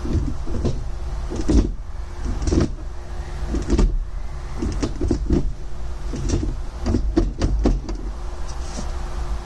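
Suzuki Carry DA63T kei truck's small three-cylinder engine idling steadily, with a dozen or so irregular clunks and clicks as the manual gear lever is moved through the gears.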